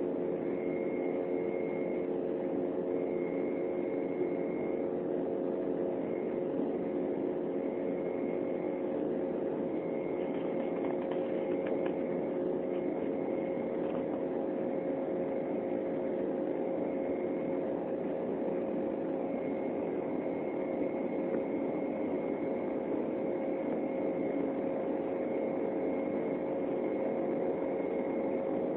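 Steady cabin drone of an Embraer 195's two General Electric CF34-10E turbofan engines in flight, heard through the cabin during the climb after takeoff. A few steady hum tones sit in the drone, with a faint high whine that comes and goes.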